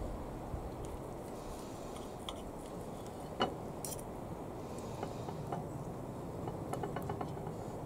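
Knife and fork cutting steak on a plate: scattered light clinks and scrapes of the cutlery against the plate, the sharpest about three and a half seconds in, over steady background noise.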